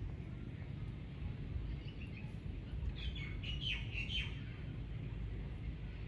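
Common myna calling: a few faint notes, then a quick run of about five sharp, falling notes about three seconds in, over a steady low background rumble.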